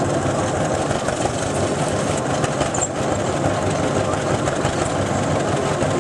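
Hart-Parr 12-24 tractor's two-cylinder engine running steadily, belted to a shingle mill.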